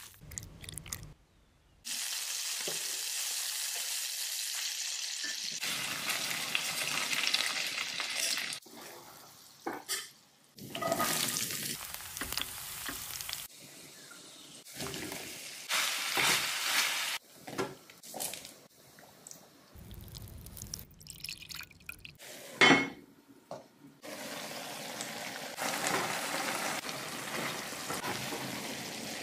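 A run of close-up cooking sounds: a soft squish of raw chicken being mixed by hand, then food sizzling in hot oil in an enamelled pan in several stretches of steady hiss, with stirring in the pan. One sharp knock of a utensil against the pan comes a little past the middle.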